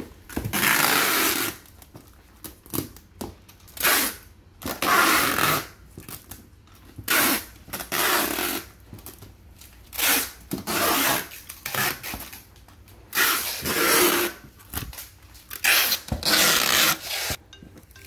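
Clear packing tape pulled off the roll in repeated strips, each pull lasting about a second, as a cardboard box is taped shut.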